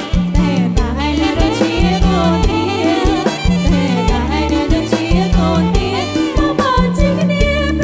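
Live band music: a Khmer romvong dance song with a steady bass beat under a wavering melody.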